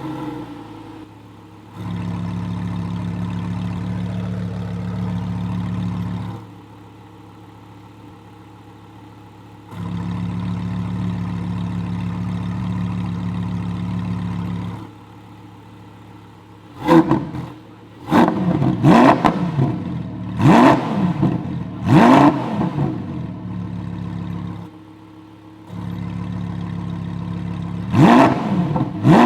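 Lamborghini Huracán EVO's 5.2-litre V10 idling, its exhaust note stepping several times between a louder and a quieter drone as the exhaust valves are switched open and closed. Past the middle comes a run of quick throttle blips, revs rising and falling, and another blip near the end.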